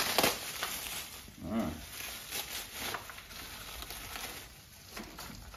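Plastic wrap crinkling in intermittent handfuls as it is pulled off a troll doll, loudest at the start and fading toward the end, with a brief low hum about a second and a half in.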